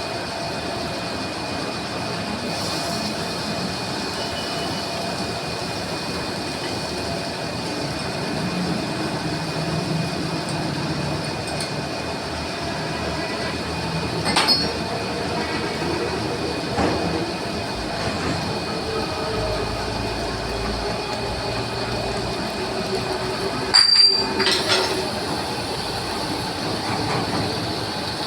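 Metal lathe running while machining a flange: a steady mechanical drone with a faint steady whine, broken by a few sharp metallic clinks, the loudest about 24 seconds in.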